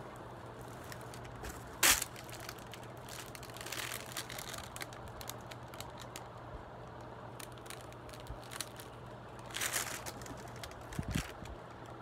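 Plastic-wrapped cardboard box being handled and turned over, the plastic wrap crinkling and the cardboard rustling, with a sharp loud crackle about two seconds in, more crinkling around four and ten seconds, and a dull thump near the end. A steady low hum runs underneath.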